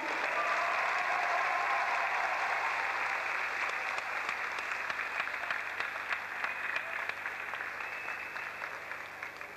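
Audience applauding, a dense patter of many hands clapping that slowly dies away.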